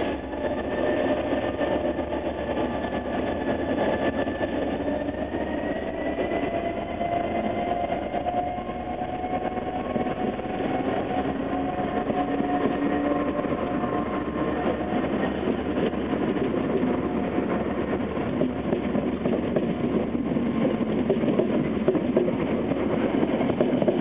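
Irish Rail 201 Class diesel locomotive, with its EMD two-stroke engine, running as it approaches and passes, its engine note holding a few steady tones that rise slightly early on. A rake of InterCity carriages then rolls past, the rushing wheel-on-rail noise growing louder toward the end.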